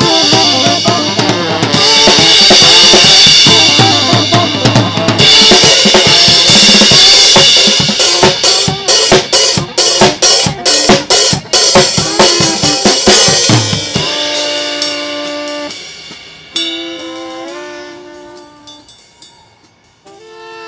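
Street band playing loud, up-tempo music on saxophone and drum kit, with a steady low bass line and busy bass drum, snare and cymbal hits, fastest near the middle. The drums stop about fourteen seconds in, leaving a few held notes that fade out near the end.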